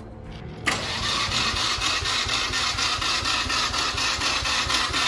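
An engine running with a fast, even clatter. It starts abruptly about a second in and holds steady.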